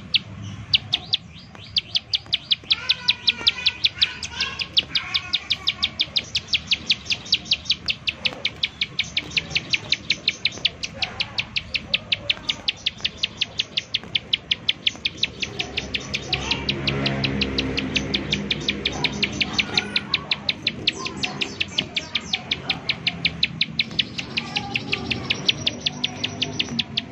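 Ciblek sawah (plain prinia) calling in rapid repeated sharp 'nembak' notes, about four a second, with brief warbled phrases between. A lower humming sound comes in for a few seconds past the middle.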